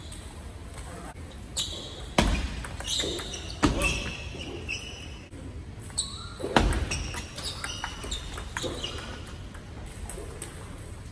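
Table tennis rally: the ball clicks sharply off the paddles and the table, with a few louder knocks about two, three and a half and six and a half seconds in, echoing in a large hall.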